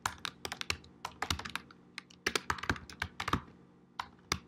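Typing on a computer keyboard: a quick, irregular run of key clicks with a short pause about three and a half seconds in.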